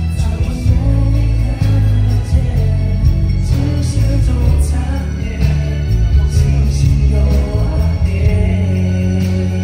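Live pop music with singing and a heavy bass line.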